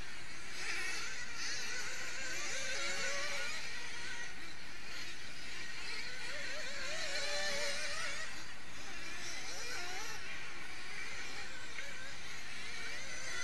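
Several 1/8-scale nitro buggies racing together, their small two-stroke nitro engines buzzing and whining, the pitch rising and falling as the drivers work the throttle.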